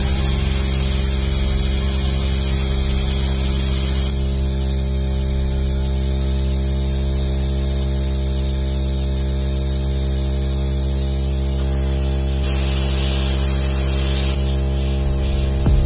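Steady loud hum under a hiss of air from a pneumatic vacuum brake bleeder sucking brake fluid out through the clutch slave cylinder's bleed screw. The hiss eases about four seconds in and swells for a couple of seconds near the end.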